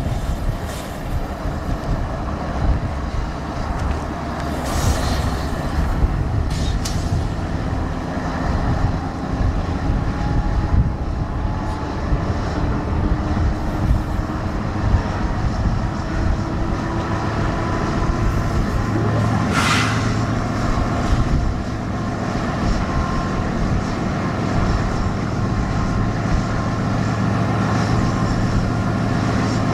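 BNSF diesel freight train running by: a steady heavy rumble of locomotives and rolling cars, with a brief high-pitched burst about twenty seconds in.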